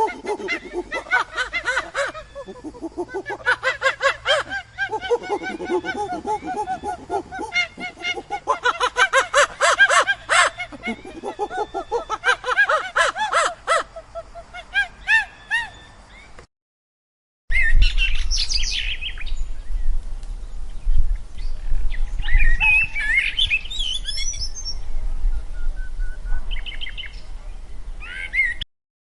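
Animal calls: many overlapping high, chirping calls that glide up and down, then a brief cut to silence and a second stretch with a steady low rumble under scattered shorter calls.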